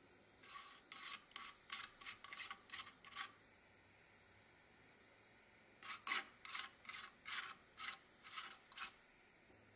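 Brass wire brush scrubbing across the soldered tinplate hull of a toy boat in quick back-and-forth strokes, about three a second: two runs of roughly ten strokes with a pause of a couple of seconds between.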